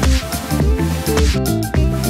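Electronic background music with a steady beat and a bass line.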